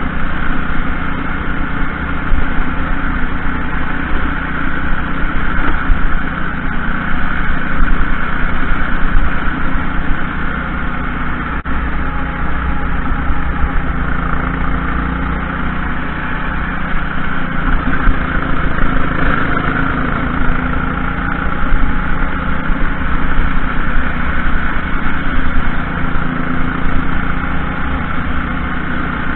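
Kart engine running hard through a lap, heard from on board the kart, its pitch drifting up and down with speed through the corners and straights over a dense rush of noise.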